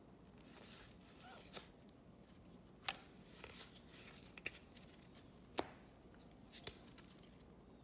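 Faint handling of trading cards: soft rustles as the cards are shuffled through by gloved hands, with a few light taps, two of them clearer, as cards are set down on a countertop.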